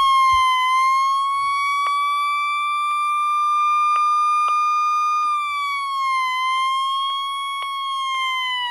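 Siren sound from a radio's loudspeaker: one long wail that holds near a single high pitch with slight wavering, then starts to wind down near the end.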